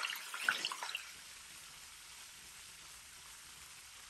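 Shrimp frying in hot oil in a wok: a faint, steady sizzle. There are crackles and clicks in the first second as the shrimp are turned over with a silicone spatula.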